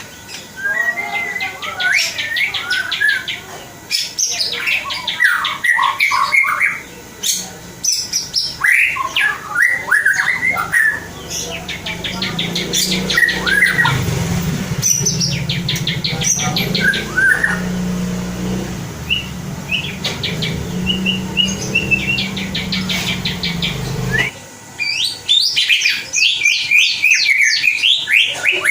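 Young wild-caught white-rumped shama singing: fast trills and sweeping whistled phrases, one after another. A low steady hum sits underneath from about 11 to 24 seconds in.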